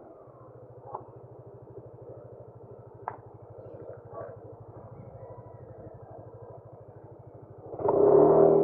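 Motorcycle engine running with a steady, rapid low pulse, heard muffled with little treble. Near the end a much louder sound with a steady pitch comes in for about a second.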